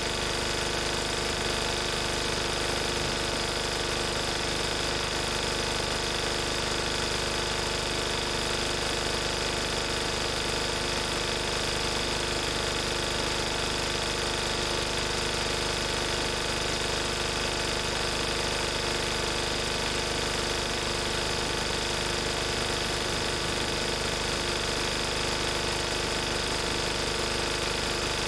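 1994 Lister Petter AD1 single-cylinder air-cooled diesel engine running steadily at its governed 3000 rpm, driving a 5 kVA Markon generator.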